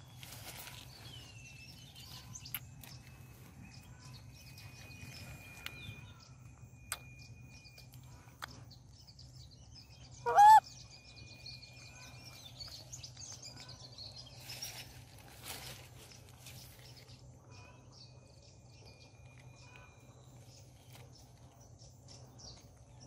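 Quiet outdoor background with faint thin chirps and scattered small clicks, broken about ten seconds in by one short, loud animal call that rises and then falls in pitch.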